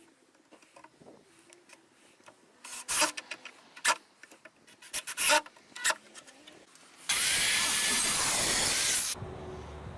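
Workshop handling sounds: a series of sharp knocks and clatter, then a loud, steady burst of a power tool or air blast for about two seconds that cuts off abruptly, leaving a quieter low hum.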